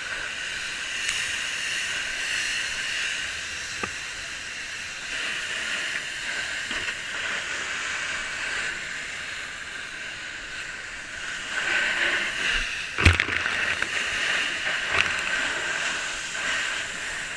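Fire hose spraying water: a steady rushing hiss that swells for a moment about two-thirds of the way through, with one sharp knock about thirteen seconds in.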